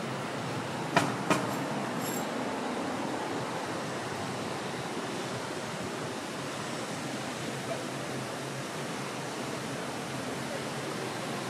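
Steady city-street ambience, an even rushing hiss with a low hum of distant traffic. About a second in come two sharp clicks or knocks, a third of a second apart.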